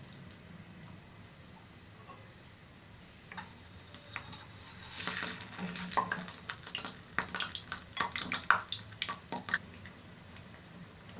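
Hot oil sizzling steadily around an egg-coated potato chop deep-frying in a karahi. About halfway in, a run of sharp crackles and pops breaks out as a wooden spatula turns the chop in the oil.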